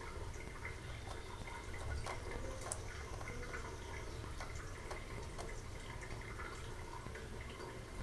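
A thin stream of tap water trickling onto a stainless steel sink, with irregular small drips and ticks over a low steady hum.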